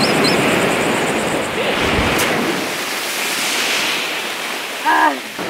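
Ocean surf washing up the beach, a steady rush of breaking waves with some wind on the microphone. A short thump comes about two seconds in, and a brief cry from a voice near the end.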